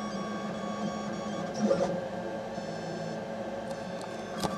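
A 3D printer running the early layers of a print, its stepper motors whining in several steady tones whose pattern shifts every second or so as the head moves. There is a short louder burst about a second and a half in, and a few sharp clicks near the end.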